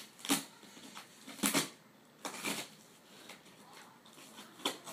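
Fingers picking and scratching at the packing tape and plastic wrap of a cardboard parcel, several short scratchy crinkles about a second apart.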